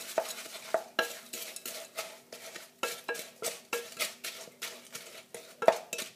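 Wooden spoon stirring chopped potatoes into beaten eggs in a glass bowl, knocking and scraping against the glass in irregular strokes, two or three a second, with one louder knock near the end.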